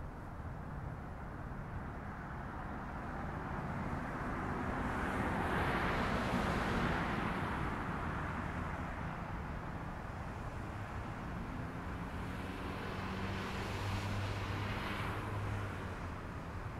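Two vehicles passing by, each a swell of road noise that rises and fades: the first about six seconds in, the second around fourteen seconds in with a low engine hum.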